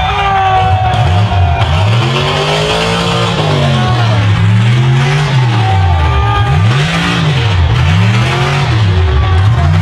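Big-engined mud-bogging mega truck revving hard, the engine note surging up and falling back over and over, about once a second, as it pushes through deep mud.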